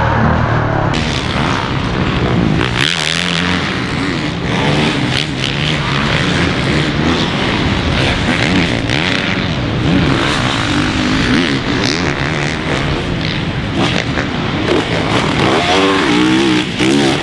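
Several four-stroke supercross dirt bikes revving hard on the track, their engine pitch rising and falling as the riders work the throttle and shift.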